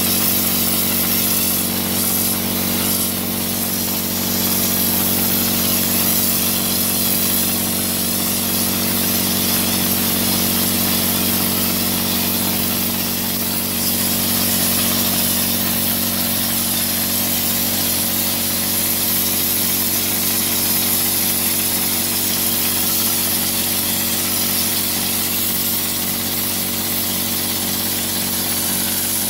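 Motor of a spray rig running steadily under load, with the hiss of a hand spray gun applying a coating.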